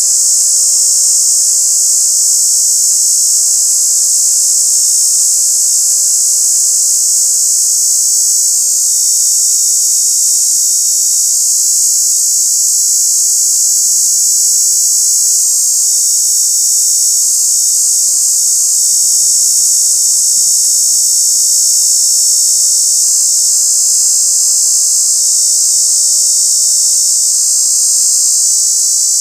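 A cicada's loud, steady, high buzzing call, unbroken and level in pitch: a racket.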